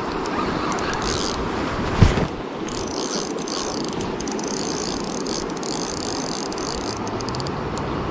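Spinning reel clicking and whirring as a hooked chinook salmon is played, over the steady rush of river water. A single knock about two seconds in.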